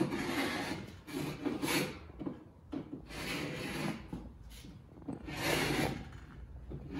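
A small steel hand scraper scraping old glazing putty out of the rabbets of a wooden window sash, in a series of short, rough strokes with brief pauses between them.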